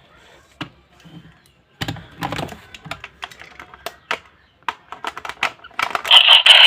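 Plastic clicks and rattles as the DX Garren Buckle toy transformation belt is handled and its strap fitted. About six seconds in, the buckle's loud electronic standby sound starts playing.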